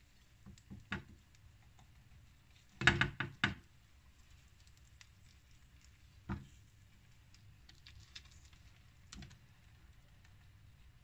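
A few scattered knocks and taps of kitchen utensils and dishes being handled. The loudest is a quick cluster of three or four knocks about three seconds in, with single knocks near the start, about six seconds in and near nine seconds.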